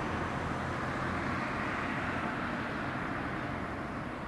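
Steady rushing noise of distant road traffic, swelling a little about two seconds in and then easing off.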